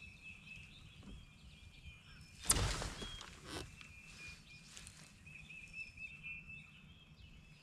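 Quiet lake ambience with faint bird chirps. About two and a half seconds in comes a short, loud swish of a fishing rod being cast, fading over half a second, with a smaller knock a second later.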